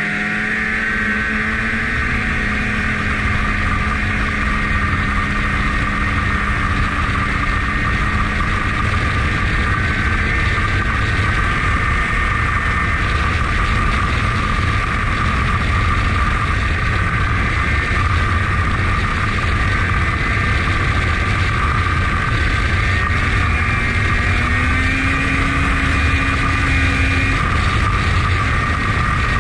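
Snowmobile engine heard from the rider's seat, rising in pitch as it accelerates in the first second, then running at a steady cruising speed with a steady high whine over a low rumble. The engine pitch rises a little about 24 seconds in, then settles.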